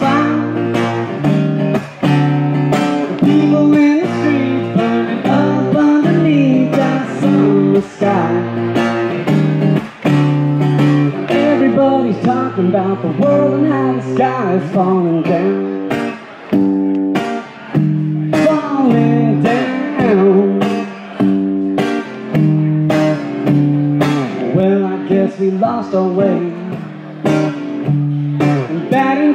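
Live amplified guitar playing a blues-flavoured song, steady chords over sustained bass notes, with a singing voice over it at times.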